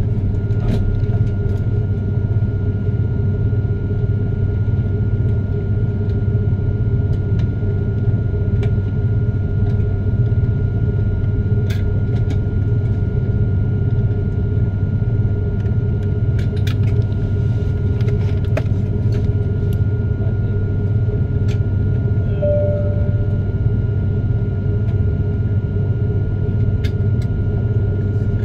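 Steady low rumble inside an airliner cabin as the jet engines run at taxi power, with a constant high-pitched whine over it and a few faint clicks.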